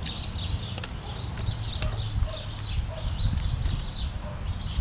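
Small birds chirping over and over, several quick high chirps a second, over a steady low rumble.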